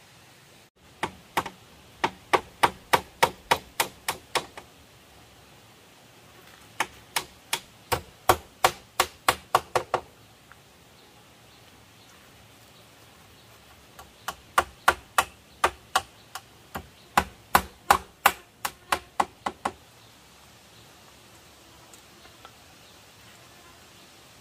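A hand tool striking bamboo in three runs of rapid blows, each run of about ten to fifteen sharp strikes at three or four a second, with short pauses between runs.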